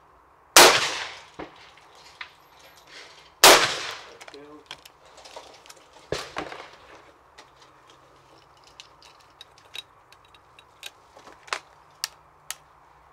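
Two shots from a hammer shotgun about three seconds apart, each loud report dying away over half a second. Then the gun is broken open with a sharp clack, and a run of small metallic clicks and clinks follows as the fired cartridges come out and the gun is handled and closed again.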